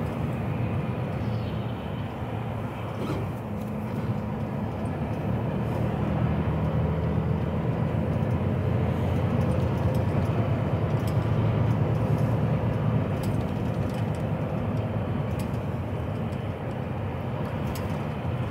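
HGV lorry's diesel engine and tyre noise heard from inside the cab, a steady low drone while driving in slow motorway traffic. It grows a little louder around the middle.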